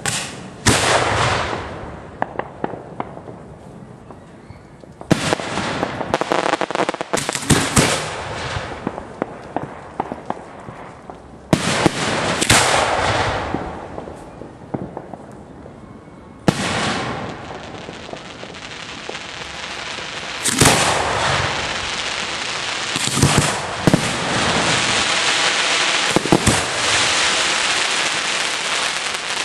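Fireworks being fired at close range: about nine sudden blasts, each followed by several seconds of hissing and crackling, with sharp cracks scattered between them.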